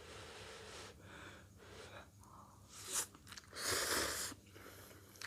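Close-miked eating sounds: chewing a mouthful of spicy instant fried noodles, with soft breathy noises. A louder noisy burst lasting about a second comes a little past the middle.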